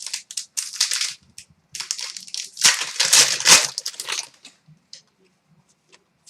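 Foil hockey card pack wrappers crinkling and being torn open in a run of irregular rustles, loudest about halfway through, then dying down to a few small ticks.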